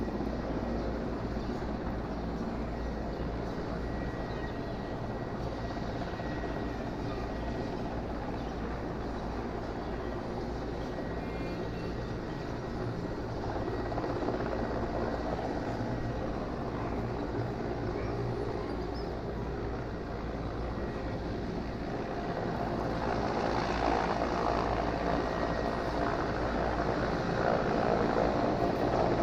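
Helicopter flying overhead: a steady rotor and engine noise that grows louder over the last several seconds as it comes nearer.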